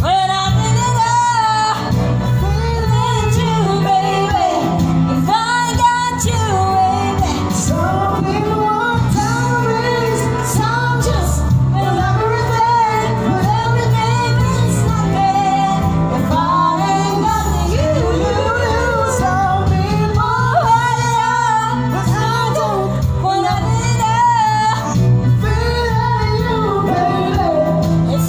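A woman and a man singing a duet together into one microphone over a musical backing, the woman's voice leading.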